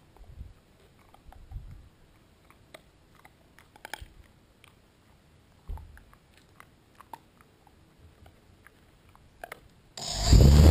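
Faint scattered clicks and taps close to the microphone. About ten seconds in, the quadcopter's motors and propellers start up suddenly and loudly, in a whine that climbs steadily in pitch as they spin up for takeoff.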